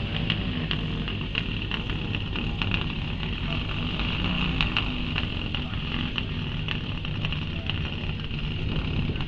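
Subaru Impreza 555 rally car's turbocharged flat-four engine running at low revs as the car drives slowly past, with irregular sharp crackles over a steady hum.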